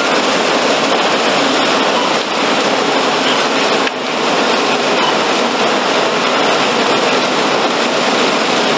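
Fire hose stream spraying water onto a burning building: a loud, steady rushing hiss.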